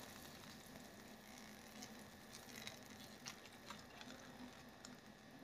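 Near silence, with a few faint light ticks and patters as a wire mesh strainer scoops boiled pempek out of a pot of water.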